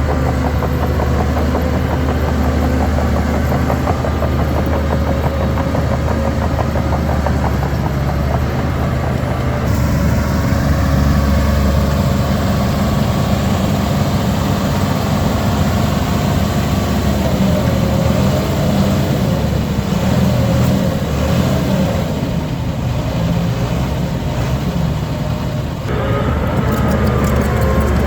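Heavy diesel engine of earthmoving machinery running steadily. It gets louder and heavier about ten seconds in and changes pitch again near the end.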